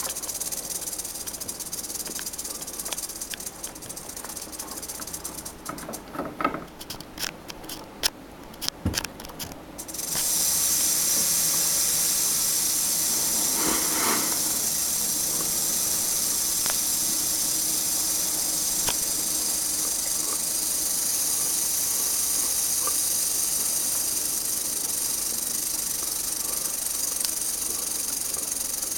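Western diamondback rattlesnake rattling its tail: a steady, high, hissing buzz. It breaks off for a few seconds about six seconds in, with a few clicks in the gap, then starts up again louder and holds steady.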